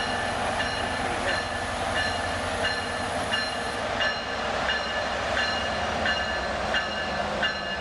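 A train's steady rumble at a station platform, with a warning bell striking evenly about three times every two seconds.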